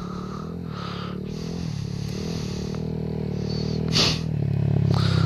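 Honda Grom's 125 cc single-cylinder engine running under varying throttle as the small motorcycle rides closer, its note rising and falling and growing louder. A short burst of noise about four seconds in.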